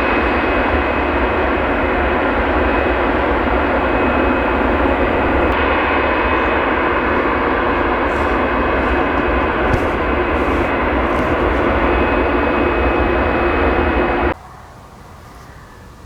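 Jet airliner engines running loudly and steadily, with a high whine held on one pitch. The sound stops abruptly about fourteen seconds in, leaving a much quieter hiss.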